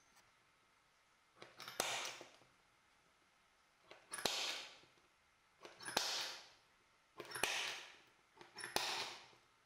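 Wood chisel paring waste out of notches across a row of pine slats. There are five strokes about a second and a half apart, each a sharp tap followed by a short scraping shave.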